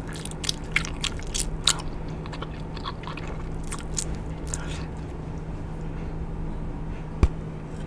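Wet, clicky chewing and smacking of Big League Chew bubble gum, quick sharp smacks coming thick for the first five seconds and then thinning out. A single sharp pop near the end, a gum bubble bursting.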